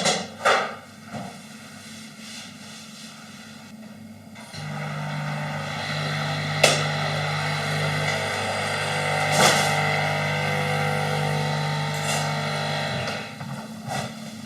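A small electric appliance motor runs with a steady whirr and hum for about eight seconds. It starts about four and a half seconds in, after a few short knocks, with a couple of sharp knocks while it runs, and stops shortly before the end.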